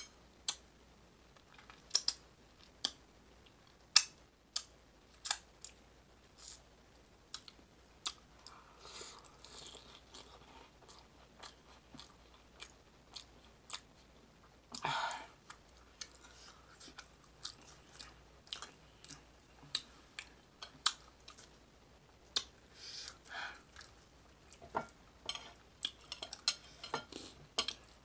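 Close-up chewing of bean chili and flatbread: a steady string of sharp, wet mouth clicks and smacks, with a louder, noisier moment about halfway through.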